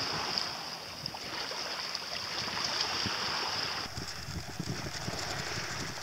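Wind buffeting the microphone over a steady wash of calm sea on rocks, with a constant high hiss above it. The midrange wash thins out about two-thirds of the way through.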